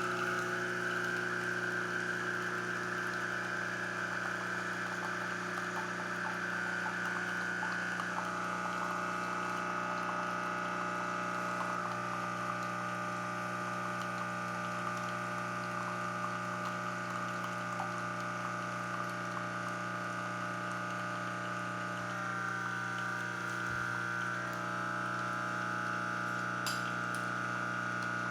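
Coffee machine's pump running steadily while it brews, a constant hum with liquid noise; the pitch of the hum drops slightly about eight seconds in and shifts again near the end.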